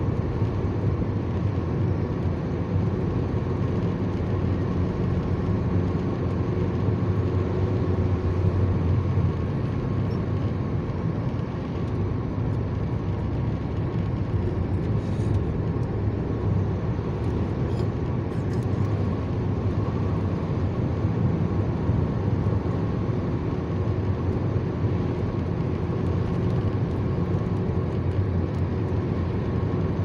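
Car cruising on an asphalt highway, heard from inside the cabin: steady tyre and engine noise with a low rumble.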